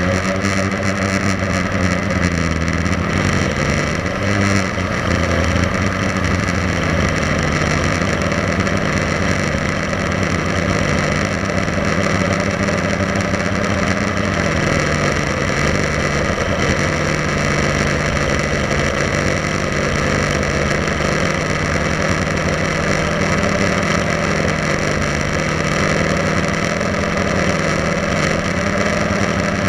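Blade 350 QX3 quadcopter's brushless motors and propellers buzzing steadily in flight, the pitch shifting with throttle about four seconds in and again around fifteen seconds.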